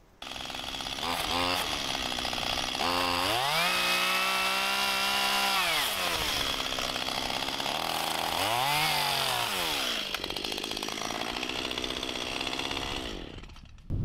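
Stihl MS 181 two-stroke chainsaw cutting into a felled ash log. It comes in suddenly, revs up to a high pitch held for about two seconds, drops back, revs briefly a second time, then runs lower and stops near the end.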